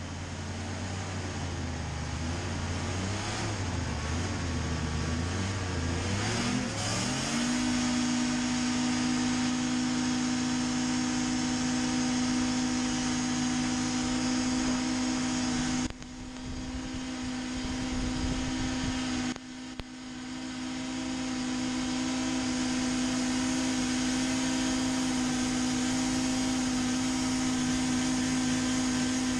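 Racing hovercraft engine heard from on board. It runs low and uneven, then climbs sharply to full power about seven seconds in and holds a steady high pitch. Its loudness dips briefly twice about halfway through.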